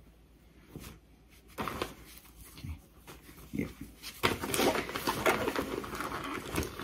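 Rustling and crinkling of cross-stitch fabric and paper being handled, with scattered light clicks, becoming louder and denser about four seconds in.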